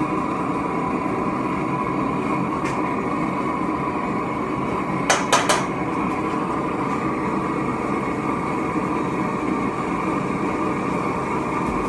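A homemade propane-tank furnace running with a steady rushing roar. Three quick clinks come about five seconds in.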